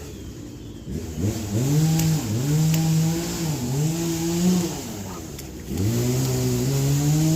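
Motor vehicle engine revving, its pitch climbing and holding, dipping briefly and climbing again three times, then fading about five seconds in before rising once more near the end.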